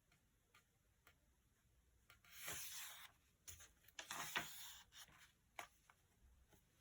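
Faint rustling and scratching at a desk, in two short stretches, with a few light clicks between them.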